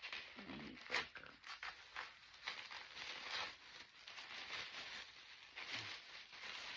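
Cosmetics packaging being handled: irregular rustling and scraping of packaging, with a sharper click about a second in.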